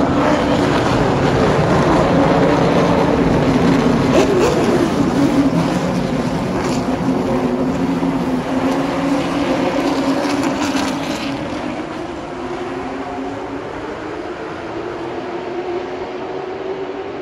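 A pack of late model stock cars running past on the short track, several V8 engines overlapping with pitch rising and falling. Loud for about the first ten seconds, then fading as the pack moves away.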